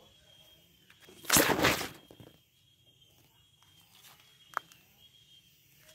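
Leaves rustling in one short, loud burst about a second and a half in, with a single brief click a little past the four-second mark.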